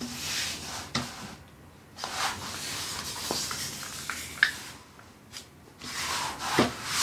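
Hands rubbing and smoothing the glossy protective sheet on a diamond painting canvas, in three stretches of rustling, with a few sharp ticks as the sheet is handled.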